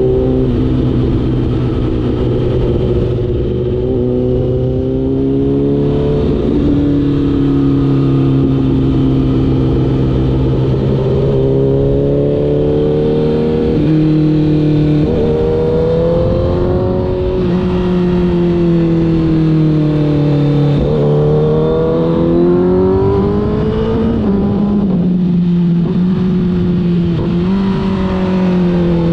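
Honda CBR1000RR's inline-four engine under way, its pitch climbing and falling again and again as the throttle opens and closes, with several sudden drops in pitch.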